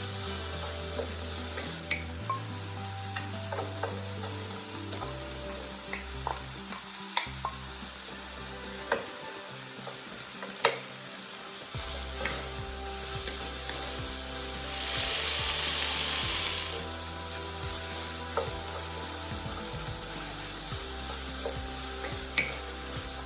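Food frying in oil in a pan and being stirred: a steady sizzle with scattered clicks of the utensil against the pan. About two-thirds of the way through, a louder hiss lasts about two seconds.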